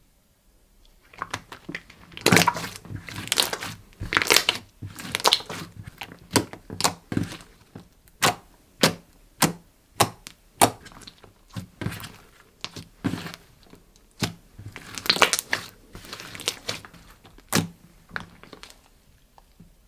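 Hands working slime mixed with eyeshadow, pressing and stretching it into a string of sharp pops and crackles, regular at about two pops a second in the middle and bunched into crackly clusters before and after.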